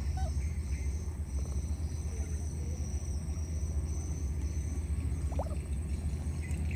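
Insects keep up a steady, high-pitched trill over a low, continuous rumble. A single short rising chirp comes about five seconds in.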